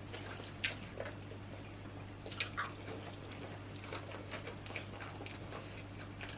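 Quiet chewing and soft, wet mouth smacks of someone eating oatmeal fufu with soup, a scattering of short clicks over a steady low hum.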